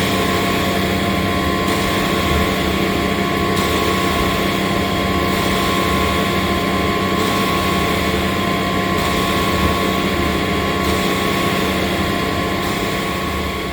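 Ready-mix concrete truck's engine running steadily as its drum turns to discharge concrete down the chute, with a steady whine.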